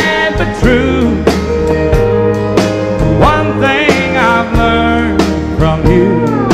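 Country ballad instrumental break: a lead melody with sliding, bending notes over sustained bass and regular drum beats.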